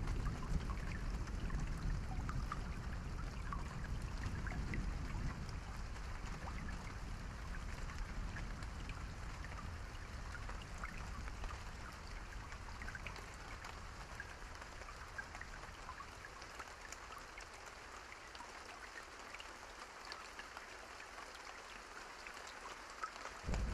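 Steady rain falling, with scattered drop ticks, over a low thunder rumble that slowly dies away. Right at the end a new, louder peal of thunder breaks in.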